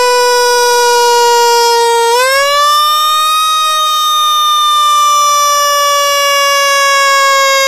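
Whelen 295SL100 electronic siren sounding through its speaker: a loud, buzzy tone near one pitch sags slowly, rises smoothly about two seconds in, then slowly winds back down.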